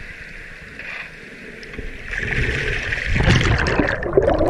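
River water sloshing and rushing around a camera held at the surface, growing louder from about two seconds in. Near the end the camera goes under and the sound turns muffled and bubbly.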